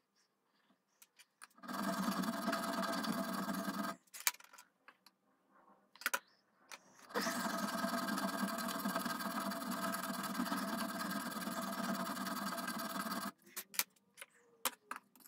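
Hand file rasping on metal at the front-sight dovetail notch of a rifle barrel, in fast steady strokes. It runs in two stretches, a short one about two seconds in and a long one from about seven to thirteen seconds. A few sharp clicks of tools on metal fall between and after.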